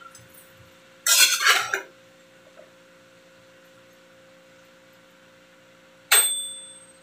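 Metal spatula stirring shredded cabbage in a large stainless steel pan: a scraping, rustling stroke about a second in, then a sharp metallic clank that rings on briefly near the end.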